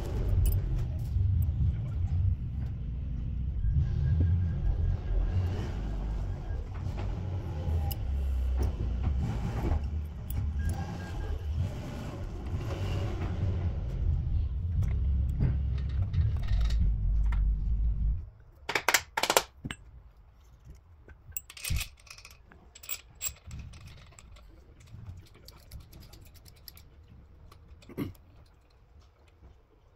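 A loud low rumble that cuts off suddenly about two-thirds of the way through. It is followed by scattered light metallic clinks and taps as the main bearing caps and bolts are handled and fitted over the crankshaft of an AMG M157 V8 block.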